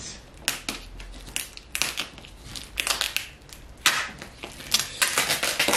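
Black plastic bin liner and parcel tape being pulled, torn and crumpled by hand off a wrapped parcel, in a run of irregular crinkling and ripping rasps.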